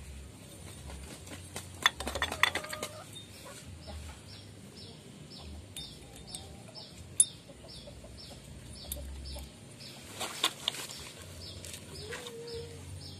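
Light metal clinks and taps of clutch plates and parts being fitted into a motorcycle clutch basket, in two clusters. Behind them a chicken clucks and a small bird chirps about twice a second.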